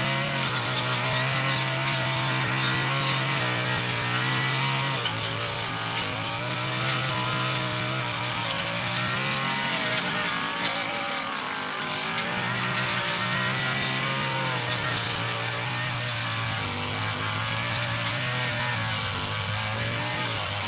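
Brush cutter (petrol grass trimmer) engine running at high speed as it cuts grass, its pitch dipping and recovering a few times.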